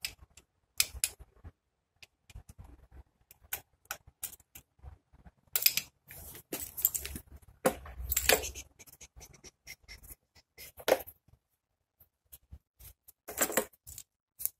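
Metal hand tools clinking and rattling against the rear brake caliper and each other: irregular short clanks and scrapes, with louder clusters about halfway through and near the end.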